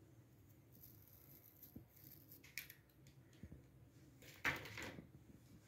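Faint handling noises of small hand-held wire brushes and their plastic blister pack: scattered light clicks and rustles, with a louder rustle lasting about half a second roughly four and a half seconds in as the brushes are set down on the pack.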